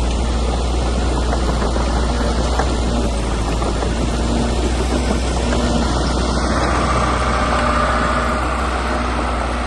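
Heavy diesel earthmoving machine engine running steadily, with a higher-pitched hiss joining about six and a half seconds in.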